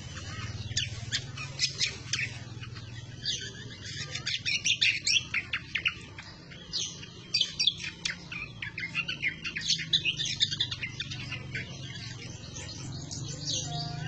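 Greater green leafbird (cucak kombo) in full chattering song: flurries of rapid, sharp, high chirps and trills, several runs broken by short pauses, thinning out near the end.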